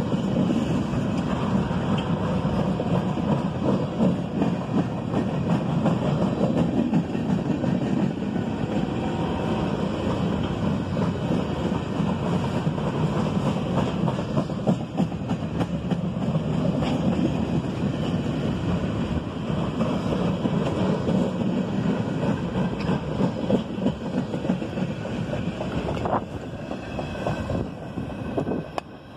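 Empty military flat cars of a freight train rolling past, a steady wheel-on-rail rumble with a few sharp clicks from the wheels over the rail. The noise drops away just before the end.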